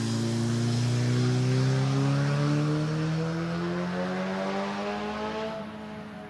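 Fendt 936 Vario tractor pulling a slurry tanker with a trailing-hose spreading boom: a steady mechanical drone that rises slowly and evenly in pitch, then gets quieter about five and a half seconds in.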